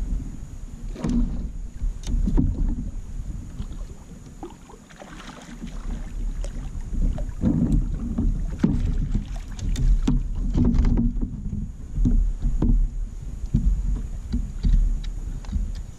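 Low rumble of wind and water noise on the microphone, with scattered knocks and handling noises against a Hobie kayak's plastic hull as an angler works two rods with fish on.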